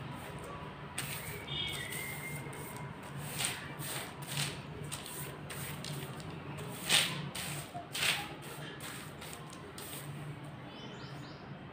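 Thin oil-greased plastic sheet rustling and crinkling under a hand smoothing it flat, in irregular soft crackles, with two louder crackles about seven and eight seconds in.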